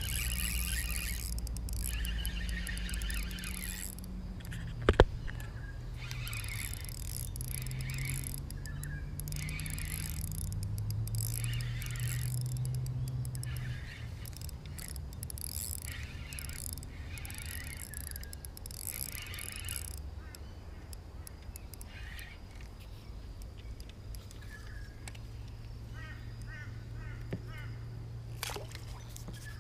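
Outdoor ambience with birds calling, a steady low hum underneath and a single sharp knock about five seconds in.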